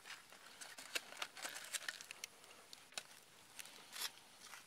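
Aluminium foil crinkling and ticking on a grill over hot coals as a foil packet of melting resin is handled, with irregular sharp crackles scattered through.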